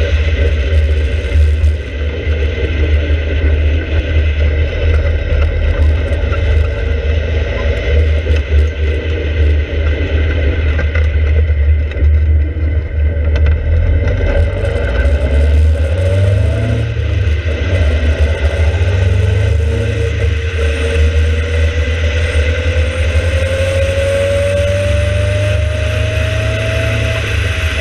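Open-cockpit sports car running at speed, heard from the cockpit: a loud, steady rumble of engine and wind. Over the last ten seconds or so the engine note climbs steadily as the car accelerates, then levels off near the end.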